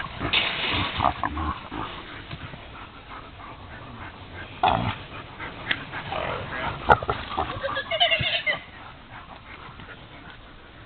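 Animals squealing and crying out in short, irregular bursts, with a sharp cry near the middle and a cluster of pitched squeals about eight seconds in.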